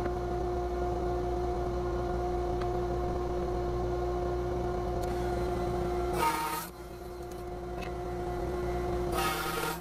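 Router in a router table running with a steady high whine, with a half-inch spiral upcut bit cutting box-joint fingers in wooden test pieces. Two short, harsh bursts of cutting noise come about six seconds in and again near the end.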